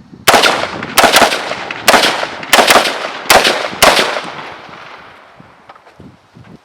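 A string of about seven rifle shots from a 5.56 mm AR-15 (Helanbak HP15), fired semi-automatically about one every half-second to second, each with an echoing tail that fades out after the last shot. The rifle is firing and cycling reliably after being dunked in dirt and water.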